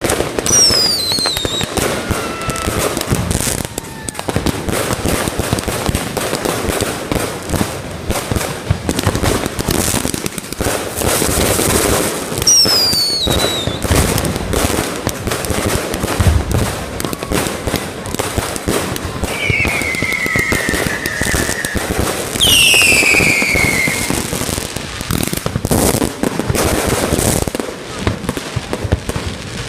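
Fireworks going off in a dense run of bangs and crackles, with several whistles that fall in pitch, four times.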